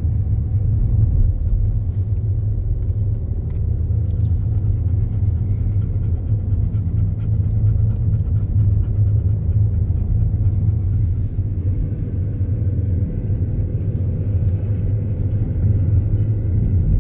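Jeep cabin rumble of engine and tyres, steady while driving up a mountain road, with a dog panting close by.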